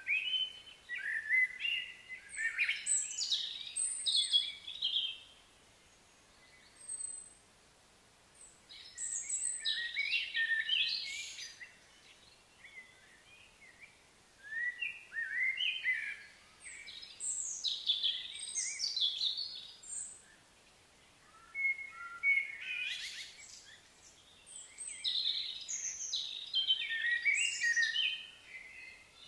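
Songbird singing: bouts of quick, varied chirps and trills a few seconds long, broken by short pauses, four times over.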